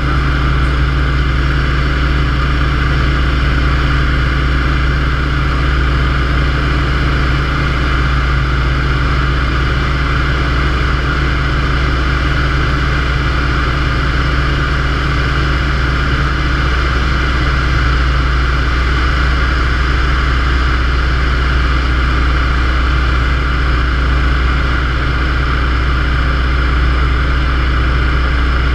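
Yak-52's M-14P nine-cylinder radial engine and propeller running steadily in level flight, heard loud from inside the cockpit, with no change in pitch.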